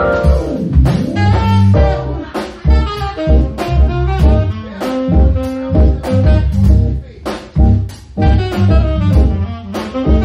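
A jazz trio playing: a saxophone plays a fast-moving melody over double bass and drum kit.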